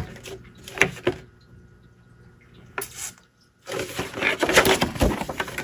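A large sheet of scrapbook paper being handled and moved around: short rustles about a second in and again near three seconds, then a longer stretch of rustling and sliding paper.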